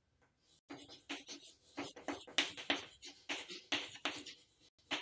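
Chalk writing on a chalkboard: a quick run of short taps and scrapes as a word is written letter by letter, starting just under a second in and stopping near the end.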